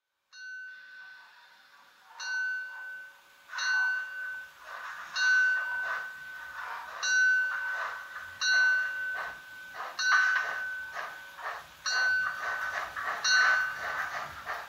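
Model steam locomotive with onboard sound running on a model railway: sound starts about a third of a second in, then comes in regular loud pulses of steam sound about every one and a half seconds, each with a ringing tone over a hiss.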